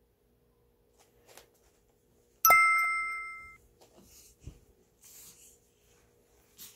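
A single bright ding, struck once about two and a half seconds in and ringing out over about a second, like an on-screen chime sound effect. A few faint soft rustles follow.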